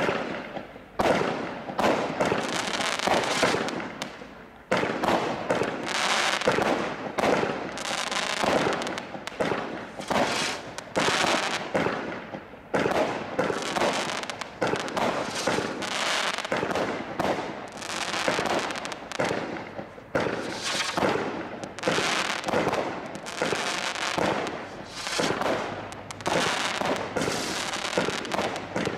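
Bright Star Seismic Strike 61-shot firework barrage cake firing, shot after shot in quick succession, each sharp launch followed by an aerial burst. There is a short lull about four seconds in, then the firing carries on.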